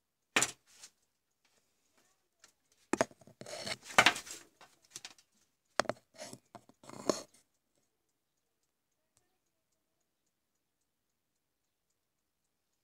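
Handling noise from hands working a small capacitor and pliers close to the microphone: a sharp click, then bursts of clicking, tapping and rubbing over several seconds, which stop about two-thirds of the way through.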